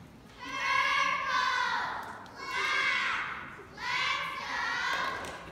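A group of young girls shouting a cheer together in unison, three high-pitched chanted phrases in a row with short breaks between them, echoing in a large hall.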